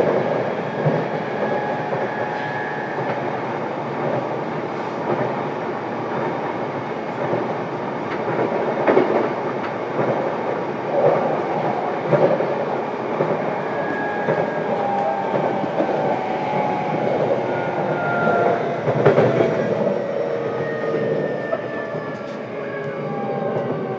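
Running sound inside an E233 series electric train's motor car: steady wheel-on-rail rumble with a few rail-joint clacks. In the second half the traction motor whine falls slowly in pitch as the train slows.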